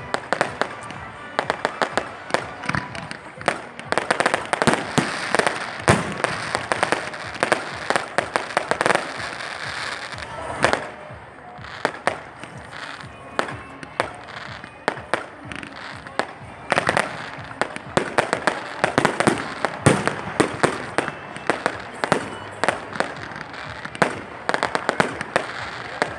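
Fireworks display: a continuous run of sharp bangs and crackling bursts from shells going off in quick succession, with the loudest bangs about six and twenty seconds in.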